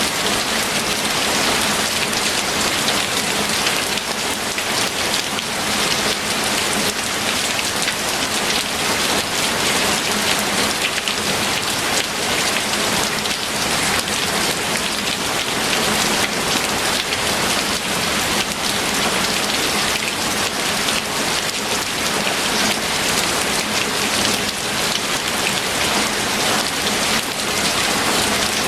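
Steady, heavy rain falling on a surface, a dense hiss of countless drops with fine individual patters.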